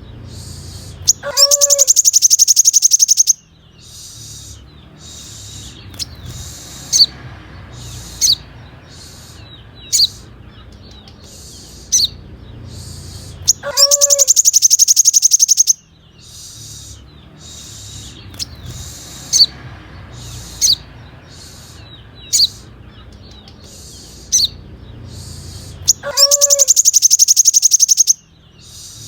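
Sunbird song on a looped training recording: a few rising lower notes lead into a loud, very fast high trill about two seconds long, followed by short, sharp high chirps every second or two. The phrase repeats about every twelve seconds, three times, over a faint low hum.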